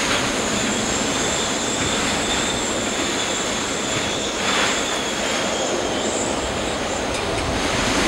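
Storm wind and rain blowing steadily across a moored sailboat, with a thin, high whistle running through the rush of noise, as wind whistles in the rigging.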